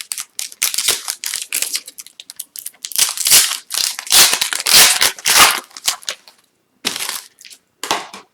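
Upper Deck Series 2 hockey card pack wrapper being torn open and crinkled by hand: dense, irregular crackling, loudest in the middle and thinning out to a few rustles near the end.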